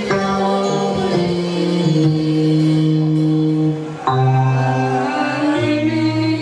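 Church music of slow, sustained held chords that change every second or two, with a brief dip about four seconds in.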